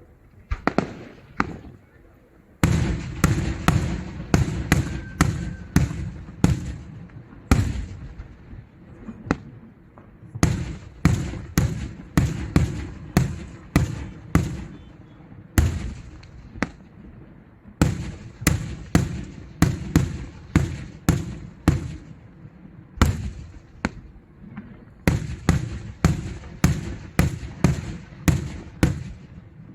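Daytime fireworks going off in rapid runs of sharp bangs, several a second, broken by short pauses.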